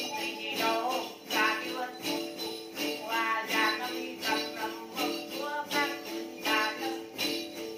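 Then ritual music: a bunch of small jingle bells shaken in a steady beat together with the plucked đàn tính, a long-necked gourd lute, and a voice singing over them.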